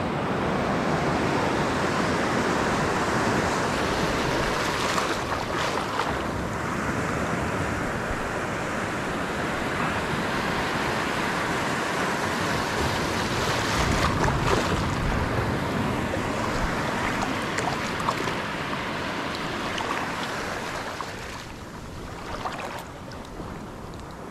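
Seawater washing over the shallow reef and surf breaking, a steady rushing wash that drops noticeably in level about three-quarters of the way through.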